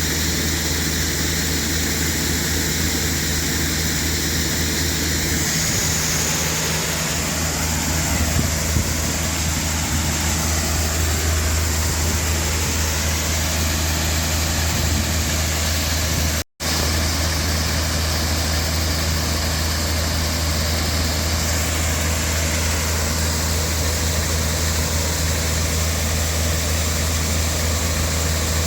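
Combine harvester running steadily at working speed, a continuous low engine drone with the whirr of its threshing machinery, broken by a split-second gap about halfway through.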